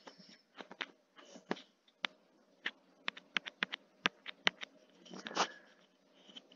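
Irregular sharp clicks and taps over an open video-call microphone, coming quickly for a couple of seconds in the middle, with a brief rustling burst a little past five seconds in.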